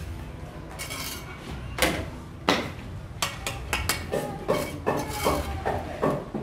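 Steel bricklaying trowel knocking and clinking against hollow clay bricks and scraping mortar as bricks are tapped into place: a few sharp knocks, then a quick run of taps from about halfway, some with a short metallic ring.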